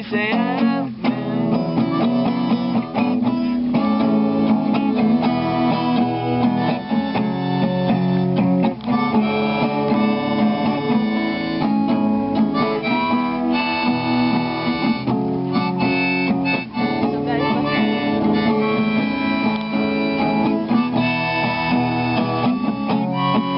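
Acoustic guitar strummed steadily while a harmonica plays the melody over it: an instrumental break in the song.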